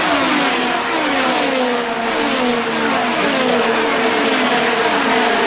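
IndyCars' 2.2-litre twin-turbocharged V6 engines passing at full racing speed one after another, each engine note falling in pitch as it goes by, about two cars a second.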